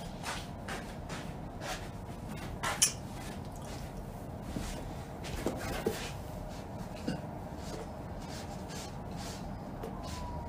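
Scattered light clicks and knocks of objects being handled close to the phone, with one sharper click about three seconds in, over steady room noise.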